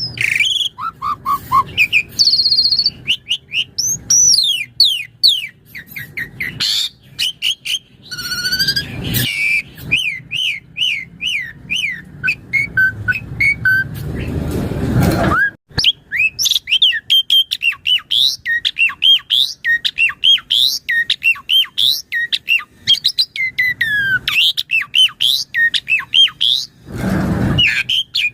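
Asian pied starling (jalak suren) singing in full voice: a rapid, varied string of chirps and whistles, many sliding up or down in pitch. A harsh, raspy stretch comes about halfway through and another near the end.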